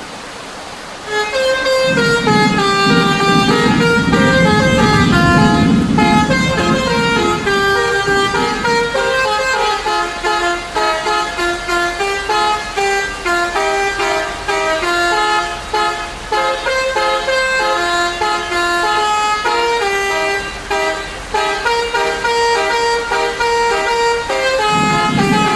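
Bus telolet horn, a multi-tone musical air horn, playing a quick melody of stepped notes. A low rumble runs underneath for the first several seconds and comes back near the end.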